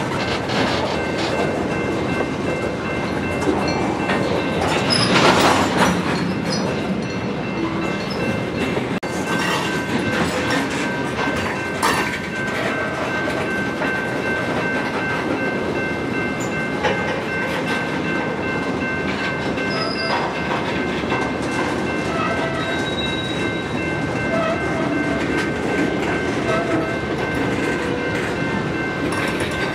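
Freight train cars rolling past at low speed, wheels clacking over rail joints, with a thin steady high squeal running over the rolling noise.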